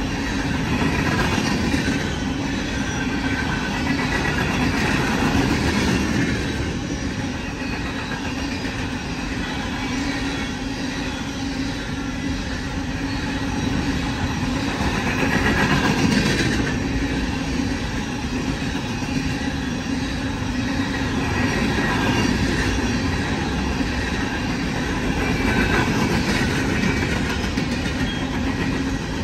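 Empty coal cars of a freight train rolling past: the continuous noise of steel wheels on the rails, swelling and easing every few seconds, loudest about halfway through.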